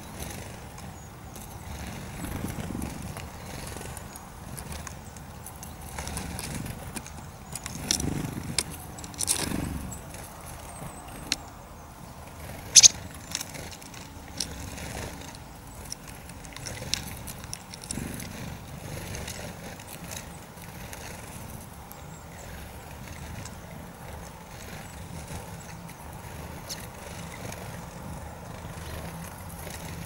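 Outdoor ambience: a low, steady rumble that swells now and then, with scattered short, sharp high-pitched sounds, the loudest about 13 seconds in.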